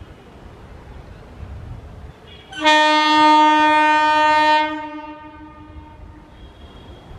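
MEMU electric train's horn sounding one steady blast of about two seconds, starting near the middle, over the low rumble of the train rolling in.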